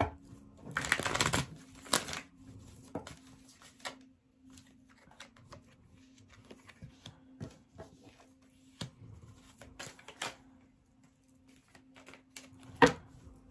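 A deck of oracle cards being shuffled by hand: a rustling shuffle about a second in, then scattered soft taps and clicks as the cards are handled and drawn, with a sharper tap near the end.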